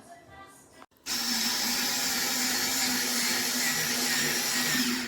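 HOTO cordless electric screwdriver's motor running steadily at one speed, starting about a second in and cutting off abruptly about four seconds later. Faint background music comes before it.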